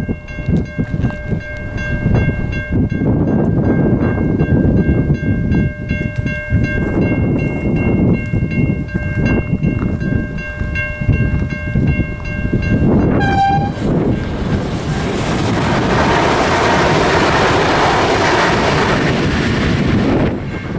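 Safetran Type 3 electronic level-crossing bell ringing with a steady pulsing tone while the boom gates are down. About 13 seconds in a train horn sounds briefly, then a V/Line VLocity railcar set runs through the crossing loudly, with a high whine that falls slightly and cuts out just before the end.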